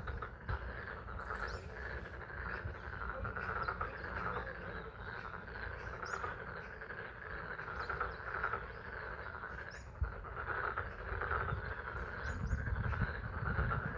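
A pond frog chorus calling continuously, a dense mass of overlapping calls, with spring rain and a steady low rumble beneath. A few short high bird chirps come through now and then.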